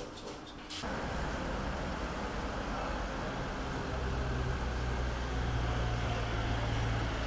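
Street traffic noise with a motor vehicle engine running nearby. The engine's low, steady hum grows stronger about four seconds in.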